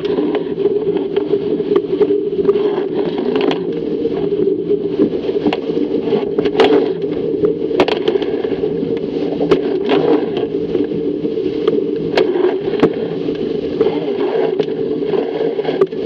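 Fireball racing dinghy planing at speed through choppy water: a steady rush of water and wind buffeting the camera, with irregular sharp slaps of waves and spray against the hull.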